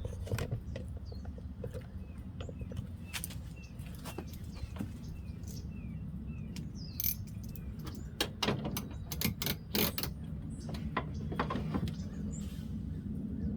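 Scattered clicks and knocks of a Porsche 996 headlight unit being fitted and locked in place with the tool, over a steady low rumble. A bird chirps about twice a second for a few seconds early on.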